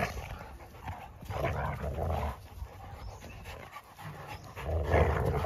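Three Labrador retrievers play-fighting, panting and scuffling, with two louder bursts of play noise lasting about a second each: one a little over a second in and one near the end.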